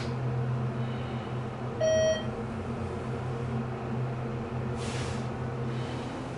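Cab of a ThyssenKrupp hydraulic elevator in travel: a steady low hum throughout, with a single electronic chime about two seconds in and a brief hiss near five seconds.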